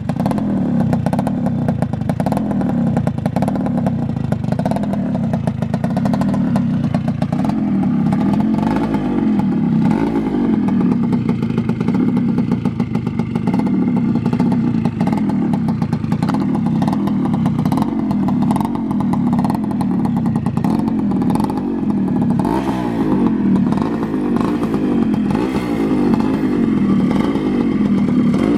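Suzuki Shaolin two-stroke motorcycle with an expansion-chamber exhaust, blipped again and again so its pitch rises and falls every second or two, with a crackly exhaust note.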